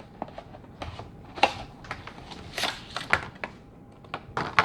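Irregular plastic clicks and rattles as a new wiper blade and its adapter clip are handled, about eight sharp clicks, the loudest about one and a half and two and a half seconds in.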